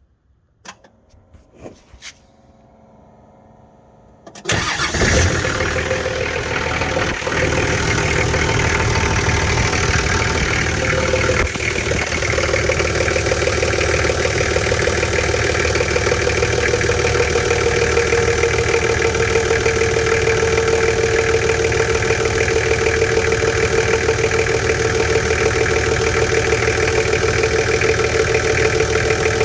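Nissan TD42 4.2-litre inline-six diesel being started: a few clicks, then it fires about four seconds in and settles into a steady idle. Over the idle a steady mid-pitched note grows clearer about halfway through, dropping slightly in pitch and then holding; this is the start-up noise the owner wants identified.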